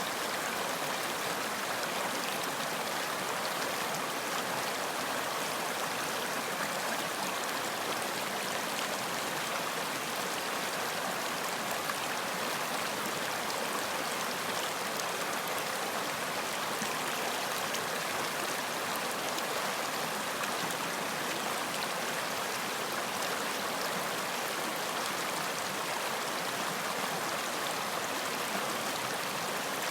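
Running water in a stream, a steady, even rush with no change.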